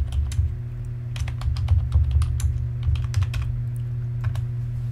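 Computer keyboard keystrokes: a run of quick, irregular key clicks as a search phrase is typed, over a steady low hum.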